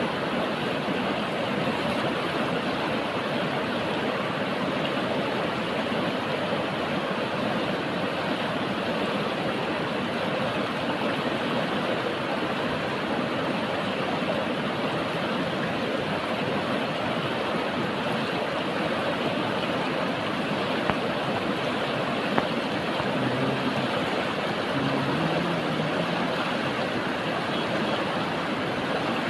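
Steady rushing of a river or stream's current. Two faint clicks come about two-thirds of the way through.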